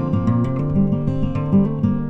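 Background music: an acoustic guitar playing a quick run of plucked and strummed notes.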